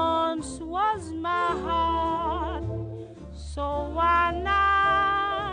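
Closing-credits music: a single melody line of held notes with slides and a wavering vibrato, over a steady low bass.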